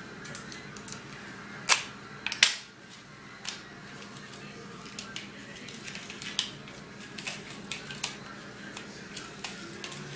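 Paper and tape being handled: sharp clicks and taps, two loud ones about two seconds in, then scattered lighter ticks.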